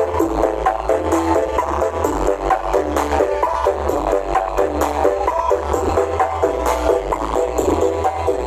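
Music played loud through a large horeg sound system with twelve subwoofers: a quick stepping melody over heavy, pulsing sub-bass.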